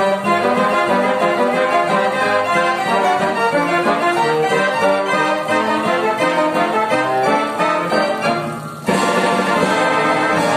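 A Philipps orchestrion playing a ragtime tune on its piano, pipes, xylophone and drums. The music dips briefly and a brighter new section begins about nine seconds in.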